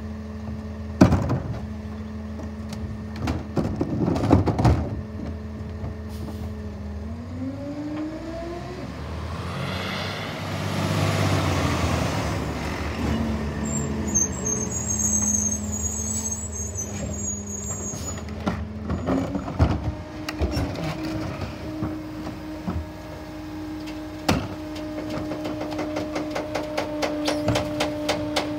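Peterbilt Leach rear loader garbage truck working: the diesel engine idles, then revs up about seven seconds in to drive the packer hydraulics, with a broad hiss partway through and the engine held at a higher steady speed for the later part. Sharp metal knocks from carts being tipped against the hopper are heard several times.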